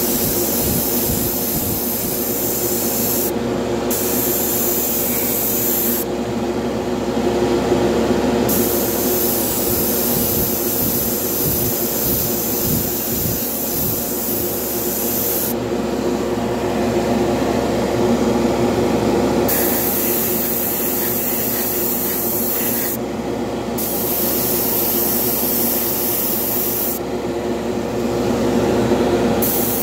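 Airbrush spraying paint in repeated bursts: a hiss that stops and starts several times, over a steady motor hum.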